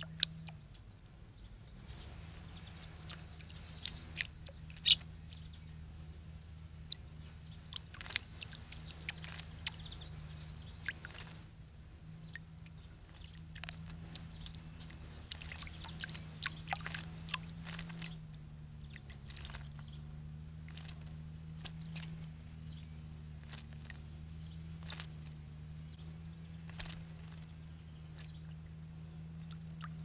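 A songbird singing three long, rapid, high-pitched song phrases a few seconds apart, with faint light splashes and ticks from small birds bathing in a shallow bird bath, over a steady low hum.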